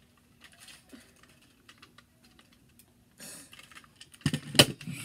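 Light plastic clicks and rattles of toy monster trucks being handled, as a boy works the pull mechanism that makes his truck change size. Near the end comes a burst of louder knocks and clatter.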